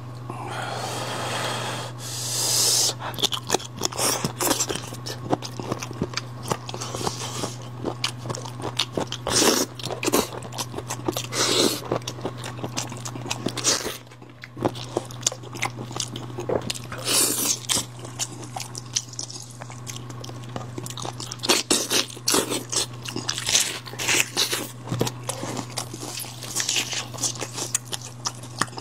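Close-miked eating of spiced sheep's head: chewing and biting into the meat, with frequent irregular crunches and sharp clicks, over a steady low hum.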